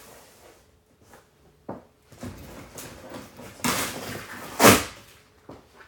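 Cardboard shipping box and its packing being handled: a few light knocks, then two louder scraping rustles about three and a half and four and a half seconds in, the second the loudest.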